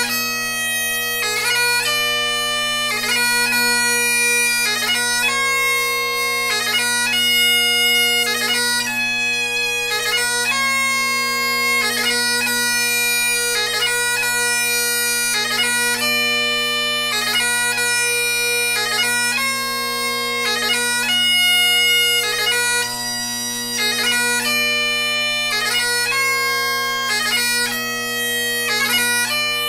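Great Highland bagpipe playing a slow piobaireachd: steady drones sound continuously under a chanter melody of long held notes, each lasting about a second, with short quick breaks between them.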